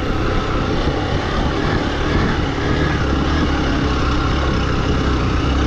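A vehicle on the move: its engine runs under a steady rush of wind and road noise, with a heavy low rumble.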